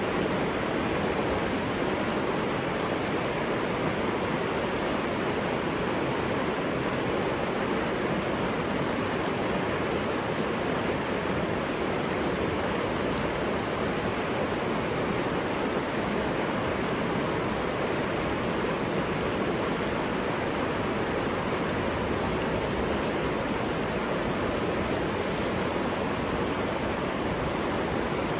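River water rushing steadily, an even, unbroken flow of sound.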